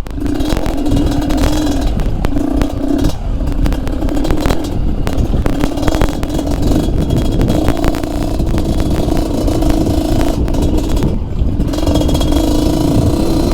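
Yamaha DT trail motorcycle with a two-stroke RX-King engine running on and off the throttle, the engine note briefly dropping and picking back up twice. Rattles and knocks from the bike riding over rocks run through it.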